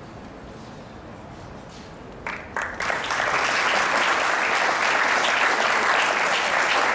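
Audience applauding: a quiet start, two single claps a little over two seconds in, then many hands clapping steadily and loudly.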